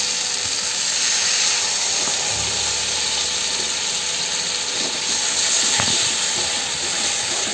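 Onion and tomato masala frying in a steel kadai, sizzling and hissing steadily after a little water is poured into the hot oil.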